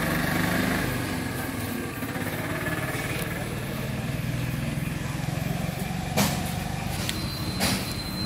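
Motorcycle engine idling steadily. A couple of sharp clicks come through about six and seven and a half seconds in, and a thin high tone starts near the end.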